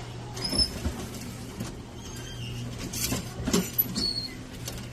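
Light knocks and clicks with several short high squeaks, like cups and utensils being handled while a drink is made, over a steady low machine hum.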